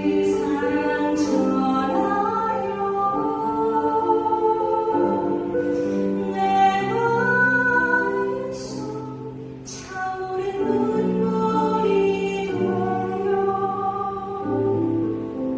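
A woman singing a slow Korean Catholic worship song into a microphone, with held low accompaniment notes beneath the voice.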